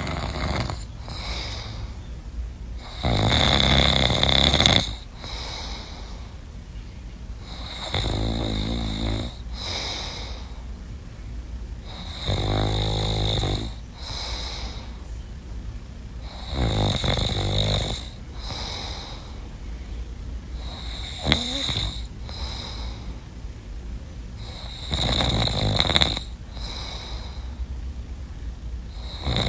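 Snoring: a long, loud snore every four to five seconds, some with a rattling flutter, and a single sharp click about two-thirds of the way through.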